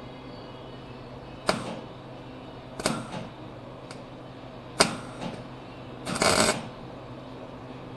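Wire-feed welder striking a series of short crackling tack welds, six brief bursts with the last and longest lasting about half a second. The arc sputters in stops and starts, which the welder suspects is the machine shorting out inside or a kinked feed wire.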